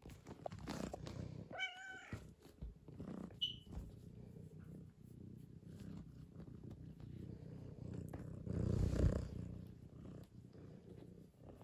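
Domestic tabby cat purring while its chin and cheek are rubbed, with a short wavering meow about two seconds in. The loudest moment, around nine seconds in, is a rustle of the hand rubbing its fur.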